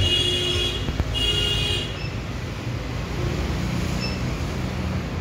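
Road traffic rumbling steadily, with two steady high-pitched tones of about a second each near the start.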